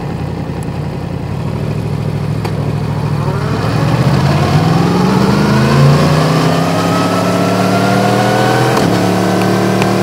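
Yamaha MT-10's crossplane inline-four on an Akrapovič exhaust, running low and steady, then accelerating. Its pitch climbs quickly from about three seconds in and keeps rising slowly after that, with a brief dip near the end.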